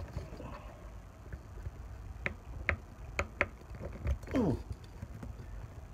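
RAM mount parts being handled and pressed together on a motorcycle handlebar: four sharp clicks between about two and three and a half seconds in, then a short sound falling in pitch about four and a half seconds in.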